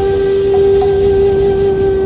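Meditative music: a flute-like wind tone holding one steady note over a soft background hiss.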